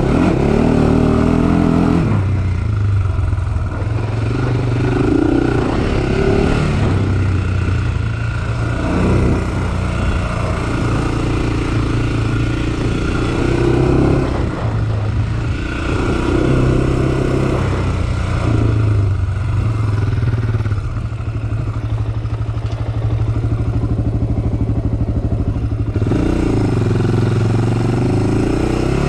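Honda 400 sport quad's single-cylinder four-stroke engine running as the quad rides along a sandy trail, the revs rising and falling as the throttle is worked, with sweeps in pitch near the start and again near the end.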